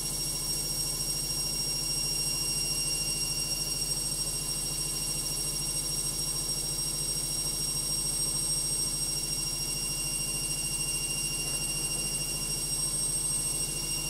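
Logik front-loading washing machine on its spin cycle, giving a steady high-pitched motor whine over a low hum, with no change in pitch: a noisy spin.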